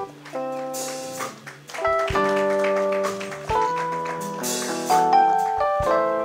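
Live band music: held keyboard chords changing every second or so, with drum kit strokes and cymbal crashes.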